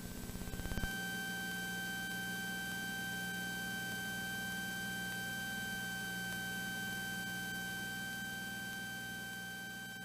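Cessna 182T's six-cylinder Lycoming engine running steadily at full takeoff power through the takeoff roll and climb-out, a low drone with a steady high whine over it. A fast rattle builds and stops about a second in.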